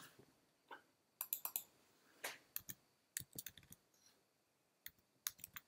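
Faint, scattered clicks of computer keys being typed in short clusters as a number is entered.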